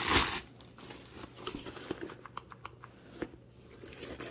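Clear plastic packaging bag crinkling as it is handled, loudest in a burst right at the start, then scattered light rustles and small clicks.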